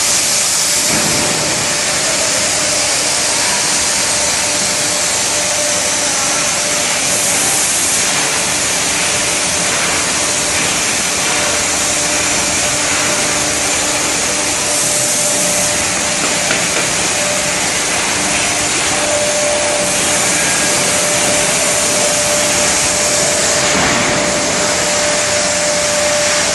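Automatic bottle handle ring applicator and its conveyor line running: a loud, steady machine whir and hiss, with a faint steady hum that grows a little stronger about two-thirds of the way through.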